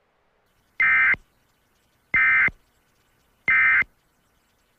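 Emergency Alert System end-of-message signal: three short, identical SAME data bursts, each about a third of a second long and a little over a second apart, marking the end of the alert.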